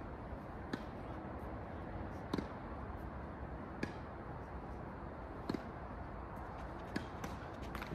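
Tennis rally: a ball struck back and forth by rackets, six sharp hits roughly every second and a half over steady background noise.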